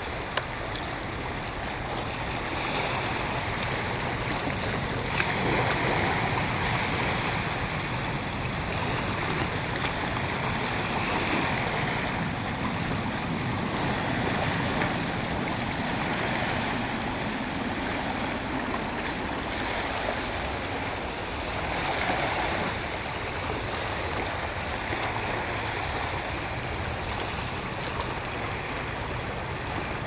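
Small sea waves washing over a rocky shoreline: a steady rush of water that swells and eases every few seconds.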